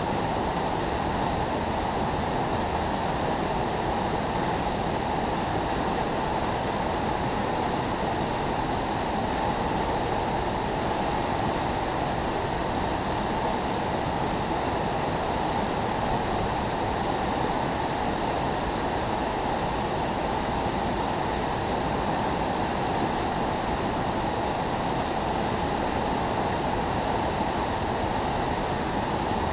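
Steady rushing of water pouring through a river spillway, an even, unbroken wash of noise.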